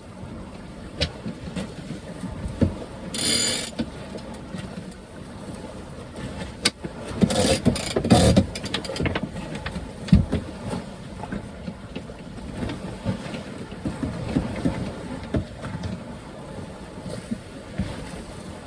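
Headsail sheet being trimmed on a sailboat: irregular clicks, knocks and scraping from working the sheet, loudest about three and a half seconds in and again around seven to eight seconds, over steady wind and water noise.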